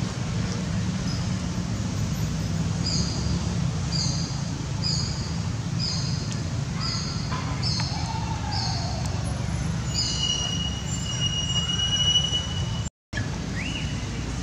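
Low rumble of wind on the microphone, with a short high chirping call repeated about twice a second for several seconds, then a long steady high whistle. The sound cuts out for a moment near the end.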